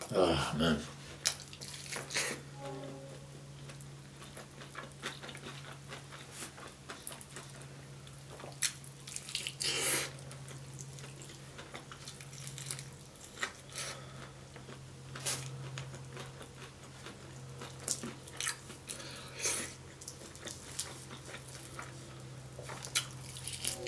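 Close-up wet chewing and lip smacking with scattered sticky clicks, as saucy Korean fried chicken is eaten and its meat pulled from the bone by hand. A low steady hum runs underneath.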